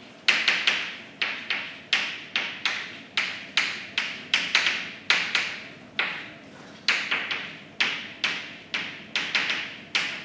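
Chalk writing on a blackboard: a fast, uneven series of sharp taps as the chalk strikes and drags across the slate, about three a second, with a brief pause about six seconds in.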